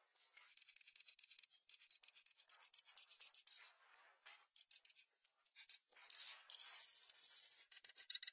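Pastel crayon scratching across paper in quick, repeated colouring strokes. The strokes are faint and sparse around the middle, then louder and denser from about six seconds in.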